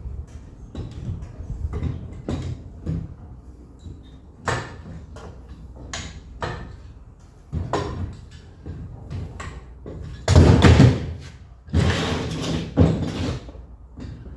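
Hand work on heavy timber: a run of wooden knocks and clunks, then two loud scraping rushes about ten and twelve seconds in.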